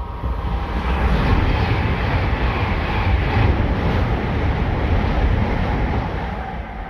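A Class 390 Pendolino electric train passing at speed: a loud rush of wheel, rail and wind noise that builds about a second in, holds, and fades away near the end.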